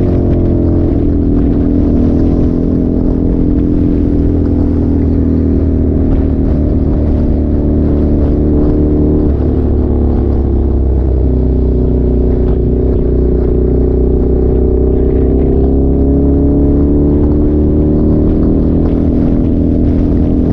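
An engine running with a steady loudness, its pitch dropping and then climbing again as it slows and speeds up.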